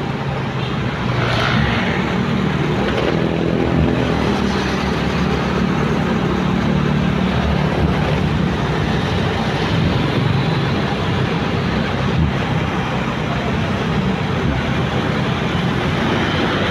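Motorcycle engine running steadily while riding, heard from the rider's seat, with road noise and passing traffic around it.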